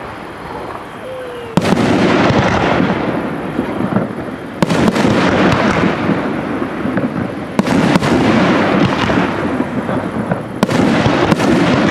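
Aerial firework shells bursting overhead: four loud bangs about three seconds apart, each trailing off in a long rumbling echo.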